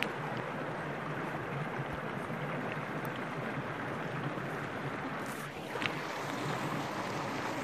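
Shallow mountain stream flowing steadily over rocks, a constant rush of water.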